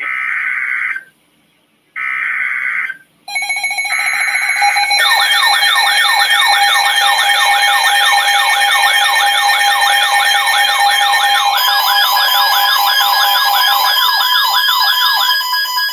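Emergency Alert System tones: two short screechy data bursts about a second apart, then several alert tones sounding together, steady tones overlaid from a few seconds in with fast warbling sweeps about three a second.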